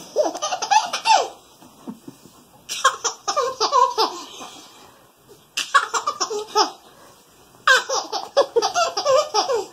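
A baby laughing hard in four bursts, each a quick run of breathy laughs with short pauses between them.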